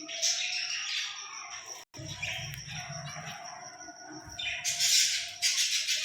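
Green parrot chirping and squawking in a run of short calls, loudest in a couple of bursts from about four and a half seconds in. A thin steady high tone runs underneath.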